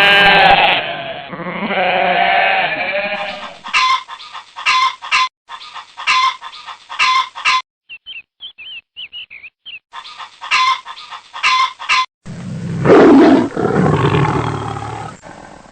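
A string of edited farm-animal sound clips. It opens with a goat bleating, followed by runs of short repeated calls and a brief burst of high chirping. Near the end comes one long, loud animal call.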